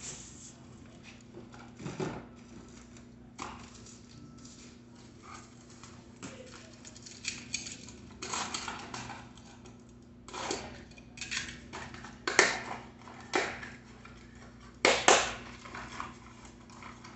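Cardboard being handled: irregular rustling, scraping and tapping as a small cardboard parts box is taken from a bike carton and opened. A faint steady low hum runs underneath.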